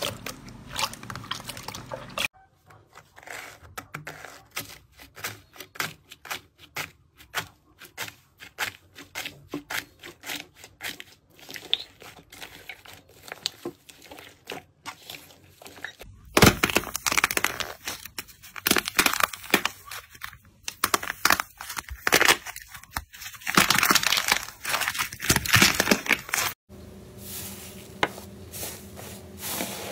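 Hands kneading and pressing slime: a stream of sticky crackles, pops and squelches. It is quieter for the first half, then much louder and denser, and it changes abruptly several times.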